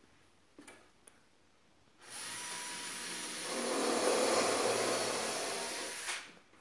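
A power tool switches on about two seconds in, runs steadily with a high whine and grows louder partway through, then stops a little before the end.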